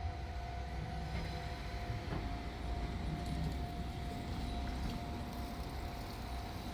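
Diesel railcar running, a steady low rumble with a constant whining tone above it.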